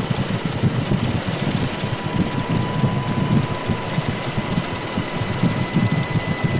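Steady engine noise of the aircraft carrying the camera, heard from on board, with a fast flutter in the low end and a thin steady whine above it.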